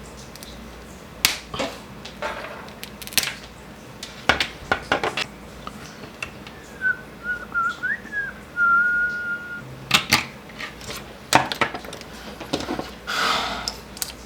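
Irregular sharp cracks and clicks of a small plastic USB device casing being pried and snapped apart, with a short wavering whistle of a few notes in the middle.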